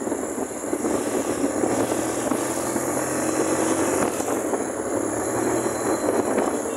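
Small motorcycle riding along at a steady cruising speed, its engine running evenly under a steady rush of wind noise.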